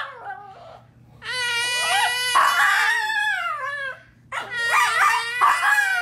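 Small fluffy dog howling in two long, held notes, the first starting about a second in and the second after a short break near four seconds, with a toddler squealing and laughing along over the howls.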